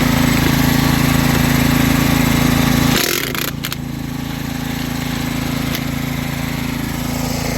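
An engine running steadily with an even hum, and a loud hiss over it that cuts off suddenly about three seconds in, followed by a couple of clicks.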